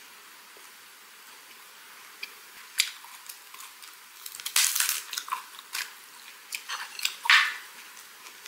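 Crisp crackling of a raw napa cabbage leaf being torn and handled, in short bursts. A cluster comes about four to five seconds in, and the loudest crackle comes about seven seconds in.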